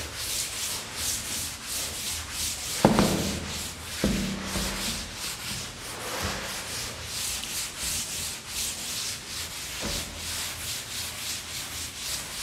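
Chalkboard being wiped clean with a board duster: quick back-and-forth rubbing strokes, about two or three a second. Two sharper knocks stand out about three and four seconds in.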